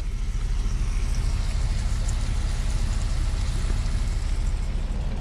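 Ground beef and tomato sauce sizzling and bubbling in a frying pan on an electric hot plate, cooking down. A steady low rumble runs underneath.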